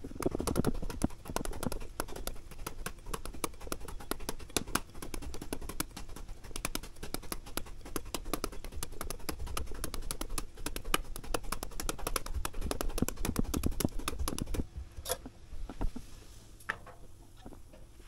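A knife blade hacking rapidly and evenly into a whole peeled green papaya held in the hand, the traditional way of shredding papaya for som tam. The chopping stops about four seconds before the end, leaving a few odd clicks.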